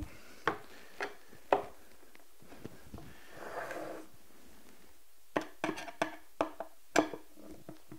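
Hand tools worked at a wooden drawer and its metal drawer slide: three sharp knocks about half a second apart, then a quick run of clicks and taps as a hand screwdriver is worked on the slide's screws.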